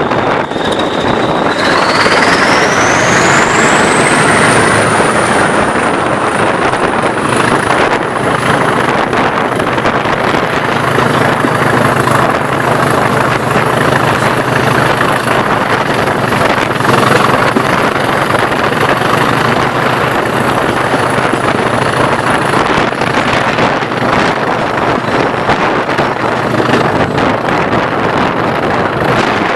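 British Rail Class 20 diesel-electric locomotive's English Electric 8SVT engine running hard, with a high turbocharger whine that rises in pitch about two seconds in, holds high, and fades a few seconds before the end.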